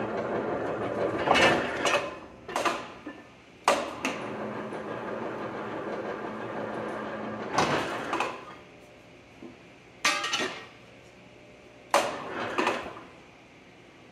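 Powered plate-rolling machine running with a steady hum as a 1/8-inch steel plate is rolled, with several sharp metal clanks as the sheet knocks against the rolls and frame. The motor stops a little past halfway, and the plate keeps clanking as it is handled and repositioned.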